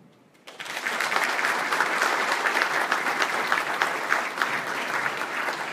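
Audience applause: many people clapping together, starting about half a second in and holding steady.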